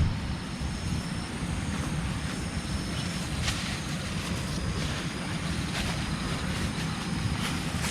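Wind on the microphone, a steady rough low rumble, with a few faint clicks scattered through it.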